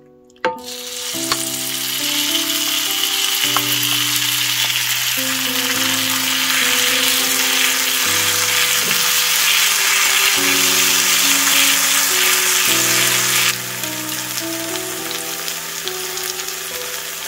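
Kimchi sizzling loudly on a hot waffle iron plate, starting suddenly about half a second in as it hits the plate and is stirred with a wooden spatula. The sizzle steps down somewhat about two-thirds of the way through.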